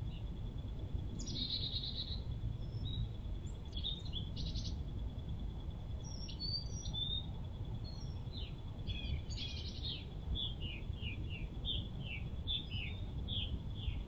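Small birds chirping: scattered short high chirps, then a quick run of short falling chirps, about two or three a second, through the second half. Under them a steady low rumble and a faint steady high whine.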